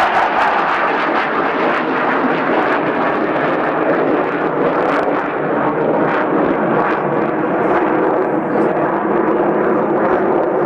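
Jet noise from a BAE Nimrod's four Rolls-Royce Spey turbofan engines during a display flypast: a loud, steady rushing sound that holds level throughout.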